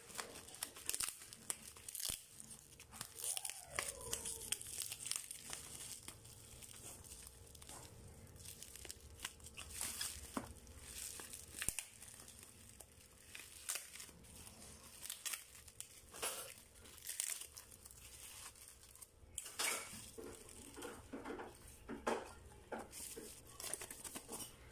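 Black plastic mailer bag and its clear packing tape being crinkled and torn open by hand: soft, irregular crackles and rips.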